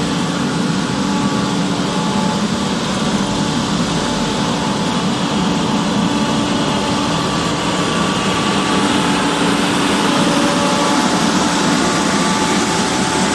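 Road construction machine's engine running steadily, a constant mechanical hum with a few held tones on top and no change in speed.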